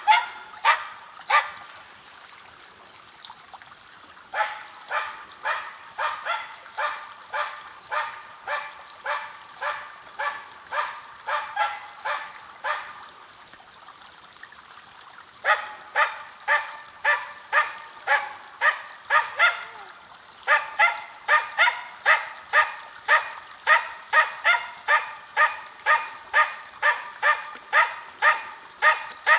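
Finnish spitz barking rapidly and steadily, about two barks a second, in long runs broken by two short pauses. This is its bay at a capercaillie sitting in a spruce, the barking a bird dog uses to hold a treed bird and mark it for the hunter.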